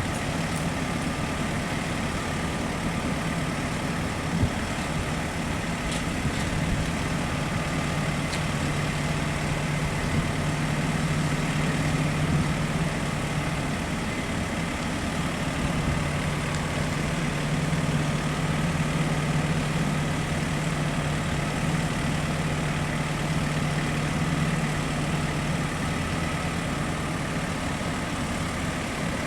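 Bus engine idling steadily while the bus stands at a stop, a constant low hum that grows a little stronger about seven seconds in.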